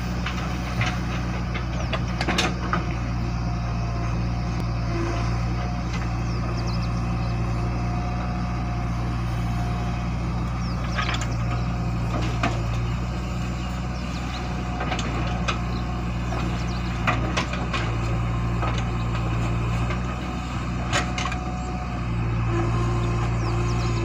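JCB 3DX backhoe loader's diesel engine running steadily under load while the backhoe digs soil and dumps it into a tipper truck, with occasional sharp knocks and clatters. The engine note rises near the end.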